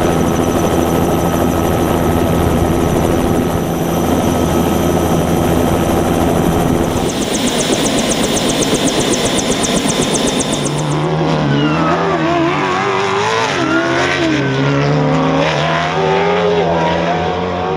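Helicopter turbine engine and rotor running at a steady pitch, with a fast regular pulsing from the rotor for a few seconds in the middle. It gives way to a desert race truck's engine revving up and down through its gears.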